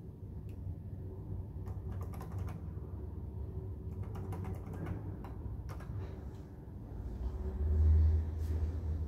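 Light clicks of a lift call button being pressed repeatedly, over a steady low hum; a low rumble swells and fades about eight seconds in.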